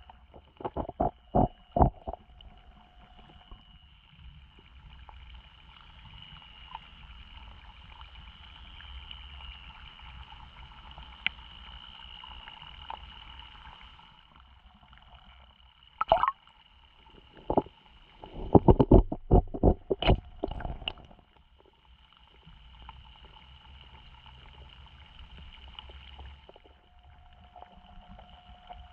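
Water gurgling and lapping with a steady faint high whine, broken by clusters of sharp knocks and clicks at the start and again about two-thirds of the way through.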